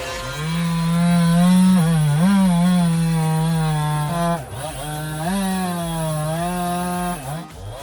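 Chainsaw running at high revs and cutting into wood, its engine pitch dipping and recovering three times as the chain bogs under load.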